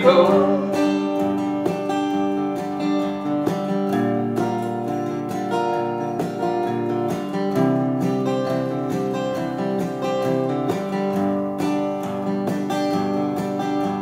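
Instrumental break in a country ballad: acoustic guitar strumming steadily, with long held notes sounding underneath.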